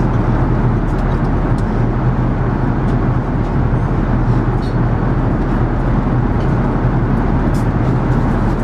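Steady cabin noise of an Airbus A380-800 in flight: an even rush of air and engine sound with a low hum underneath.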